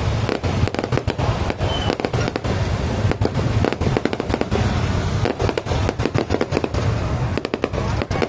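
Fireworks display going off in a dense, continuous barrage, with many sharp bangs a second overlapping one another.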